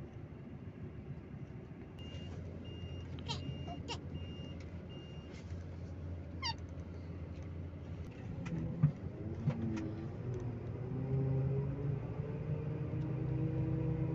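Coach engine running, heard from inside the passenger cabin. A run of short, evenly spaced electronic beeps sounds about two seconds in, with a few squeaks and a sharp knock near the middle. Then the engine's pitch rises as the bus accelerates.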